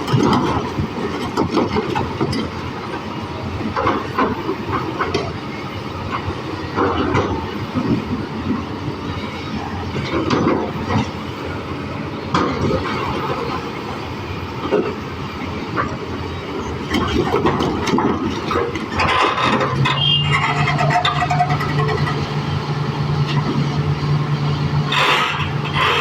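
Excavator working: its diesel engine runs steadily while irregular knocks and clanks sound through most of it. About two-thirds of the way in, a steady low drone joins and holds.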